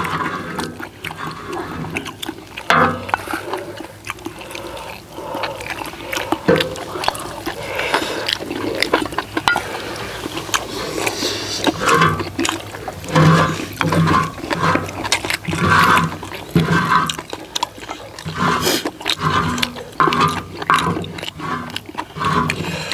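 Close-miked eating sounds: people chewing and slurping a spicy stir-fried octopus and rice dish, with a wooden spatula scraping along a large iron griddle pan at intervals, more often in the second half.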